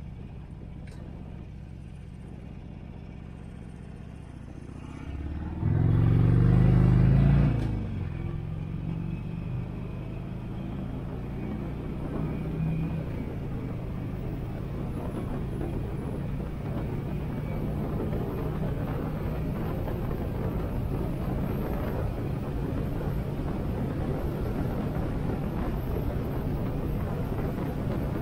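Harley-Davidson Sportster 883's air-cooled V-twin running at low speed. About five seconds in it revs up loudly and rising for about two seconds as the bike accelerates, then settles into a steady cruise as road and wind noise slowly build.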